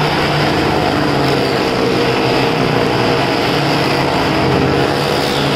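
Several motorcycles running steadily at speed as they circle the wall of a wooden well-of-death drum. Their engines make a loud, continuous drone with no revving changes.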